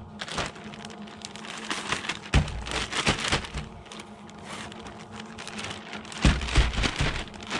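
A dry breading of cornmeal, flour and seasoning being mixed in a container: a soft, grainy rustling patter with a few dull knocks.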